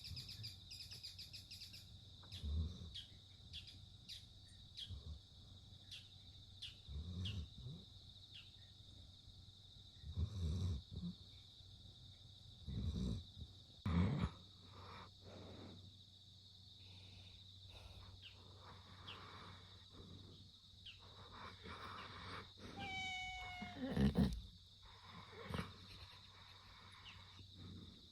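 A sleeping puppy snoring: short, low, rough snores every two or three seconds, unevenly spaced, the loudest about three-quarters of the way through. Just before that loudest snore comes a brief high whine that bends in pitch.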